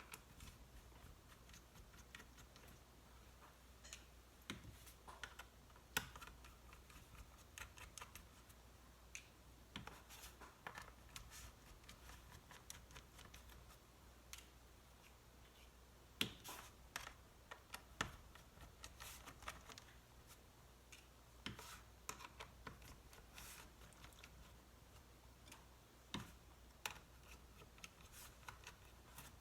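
Faint, irregular small clicks and ticks of a P5 pentalobe screwdriver taking out the bottom-case screws of a MacBook Pro Retina, with small metal-on-metal taps as it is worked.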